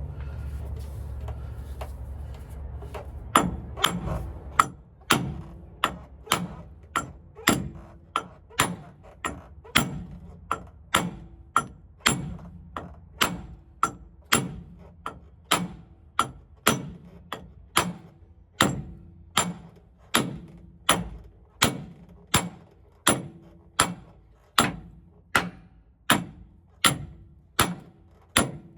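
Hammer blows on metal, evenly paced at about one and a half a second, each with a brief metallic ring, driving a differential pinion yoke back onto its splines. A low steady rumble comes before the first blow, about three seconds in.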